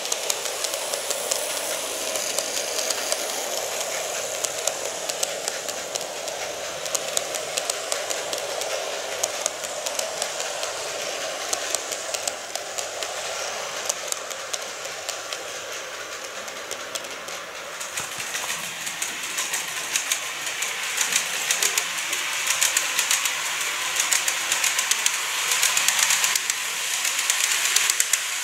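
Greenmax N-gauge model of a Tobu 50050-series electric train running on curved track: rapid fine clicking of the small wheels on the rails over a steady whirr of the motor. It grows louder in the last third as the train comes closer.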